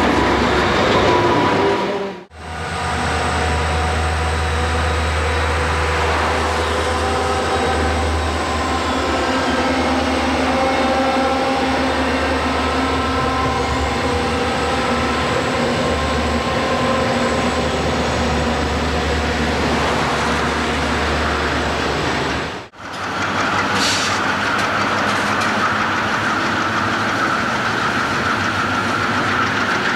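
Diesel freight locomotives and coal trains passing at close range: the engines run with a steady low drone while the wheels roll over the rail. The sound drops out briefly twice as one passing train gives way to the next. A steady high whine joins in the last several seconds.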